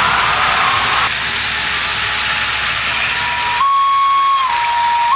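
HO-scale model electric trains running on the layout: a steady hiss of running gear with a thin, steady whine that steps up slightly in pitch for about a second near the end, then drops back.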